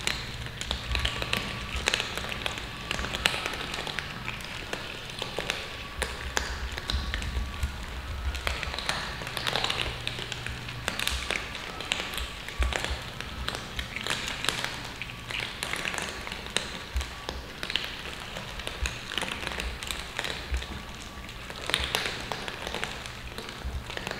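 A group of cats eating dry kibble from a metal tray: a dense, irregular crackle of crunching and clicking kibble.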